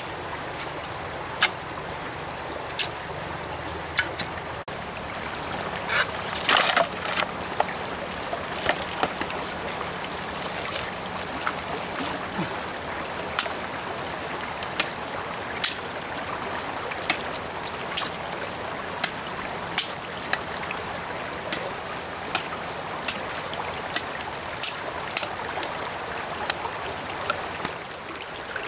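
Sharp knocks every second or two, with a quick flurry about six seconds in, from a wooden digging pole and a machete striking earth and stones. Under them runs a steady hiss and a thin, steady high tone.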